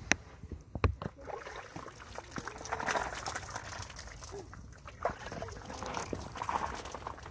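Water splashing and trickling as a person washes with cupped hands, with two sharp knocks in the first second.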